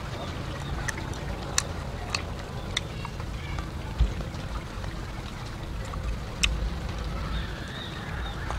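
A metal spoon and chopsticks clinking and scraping against a metal serving tray while a minced meat salad is tossed, giving a dozen or so sharp, irregular clicks. A steady low rumble runs underneath.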